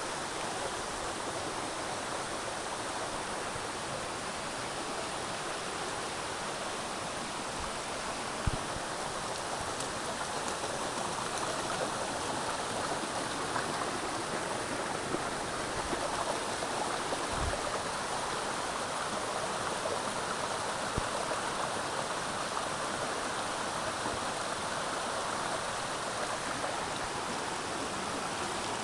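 Steady rushing of a jungle stream and waterfall, with a few faint low knocks about eight and seventeen seconds in.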